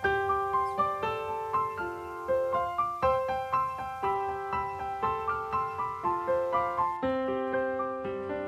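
Background piano music, a steady run of notes in an even rhythm.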